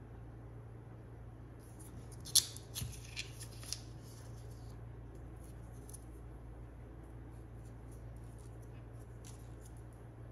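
Hands handling objects during an unboxing: a sharp click, then several lighter clicks and rustles over about a second and a half, followed by a few faint ticks. A steady low electrical hum runs underneath.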